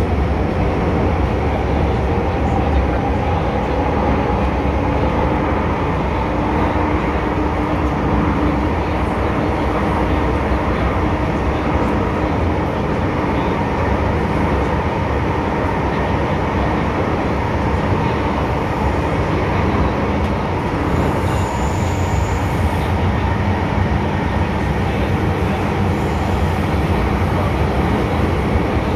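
Cabin noise of an MTR M-Train metro car running between stations: a steady loud rumble of wheels on rail and running gear, with a faint steady tone in the background. A brief high squeak comes a little past the middle.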